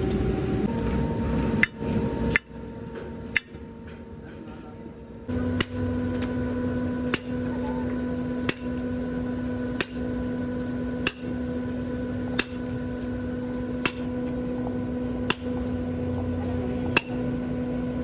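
Hammer blows on metal, about one every second and a half, with a steady hum underneath.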